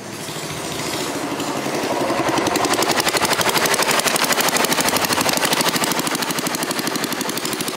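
Small long-tail motorboat engine running with a rapid, even putter as the boat passes. It grows louder over the first couple of seconds and eases slightly near the end.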